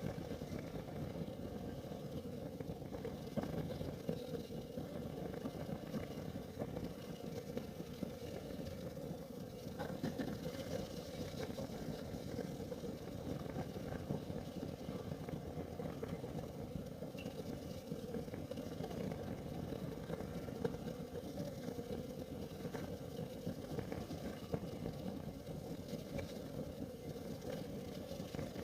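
Kerosene heater burning: a steady, low hum from the flame, with a few faint ticks and crackles.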